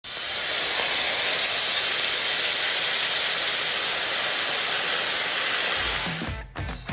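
Sauce sizzling loudly and steadily as it is poured into a hot oiled frying pan with fried tofu and vegetables. The sizzle drops away about six seconds in, and guitar music starts.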